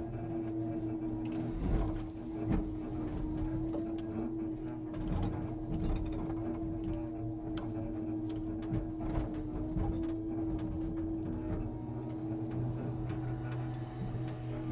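Scania timber truck's engine running at a steady speed, with scattered clicks and knocks over it.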